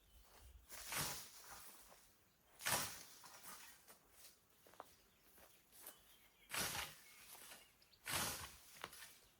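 Hand scythe swishing through tall grass, four separate strokes with pauses between them and light rustling of cut grass in the gaps.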